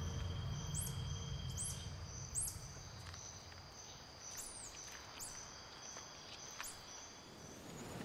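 Night insects of the tropical forest: a steady high buzz with short, very high chirps about once a second, over a low rumble that fades during the first few seconds.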